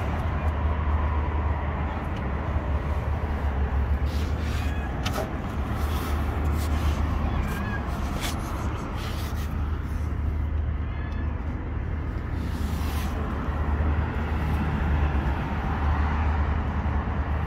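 Steady low rumbling background noise, with a few faint clicks and short high squeaks scattered through it.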